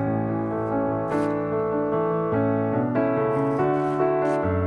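Background music led by piano or keyboard, notes changing about every half second over a sustained bass.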